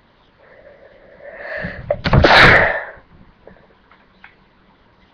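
A person sneezing once: a rising, drawn-in build-up for about a second and a half, then one loud sneeze about two seconds in.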